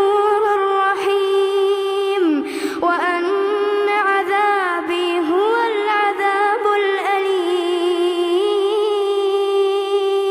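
A male reciter chanting the Quran in the melodic tajweed style, unaccompanied, drawing out one long vowel on a steady high note. The note is decorated with small ornamental turns in pitch and breaks briefly about two seconds in.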